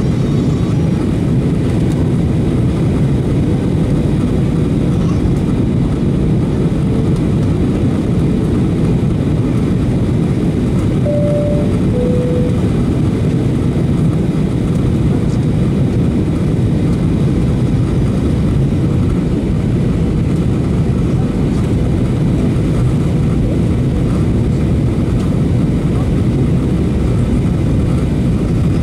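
Steady cabin roar of a Boeing 737-800 on approach, heard from a window seat over the wing: the CFM56-7B turbofan engines and rushing air. A short two-note tone, higher then lower, sounds about eleven seconds in.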